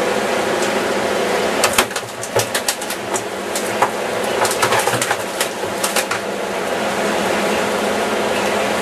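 A fishing boat's engine running steadily with a hum, dipping briefly about two seconds in, with a run of sharp clicks and knocks over the next few seconds.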